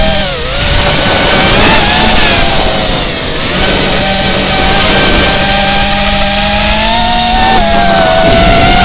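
FPV quadcopter's brushless motors whining, heard through the action camera on the quad, with a heavy rush of wind and prop-wash noise. The whine's pitch dips sharply just after the start, climbs again, holds fairly steady through the middle and wavers near the end as the throttle changes.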